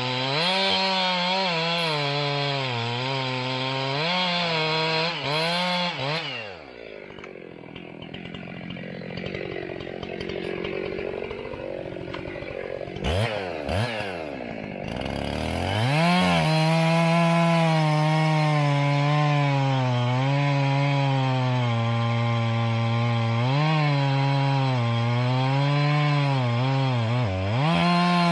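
Old two-stroke chainsaw running at full throttle and cutting wood, its engine pitch wavering under load. About six seconds in it drops back to a lower, quieter running speed. Around thirteen to fifteen seconds the revs dip and rise sharply a few times, and from about sixteen seconds it is back at full throttle cutting.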